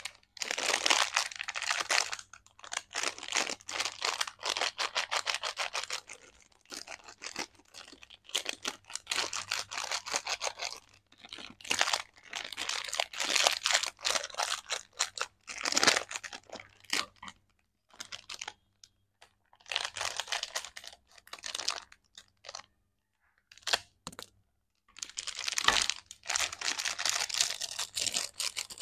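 Foil-lined plastic lollipop pouch crinkling and crackling as hands squeeze and twist it, in bursts of a few seconds with short pauses between.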